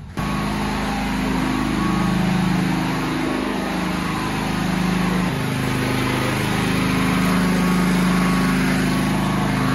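Small engine running steadily at a fairly constant speed, its pitch wavering slightly; it cuts in suddenly at the very start.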